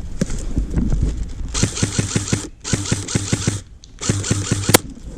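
Airsoft electric rifle fired on full auto in three short bursts, each a rapid run of shots with motor whirr that stops abruptly, the last ending in a sharp click.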